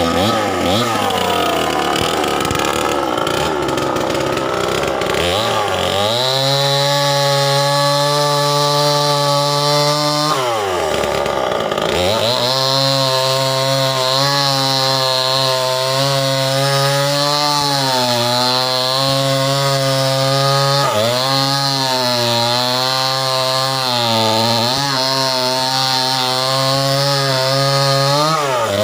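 Stihl 070 two-stroke chainsaw cutting through a mango-tree log. Its engine speed wavers for the first few seconds, then it runs at high speed in the cut, the pitch sagging and recovering several times as the chain bites into the wood.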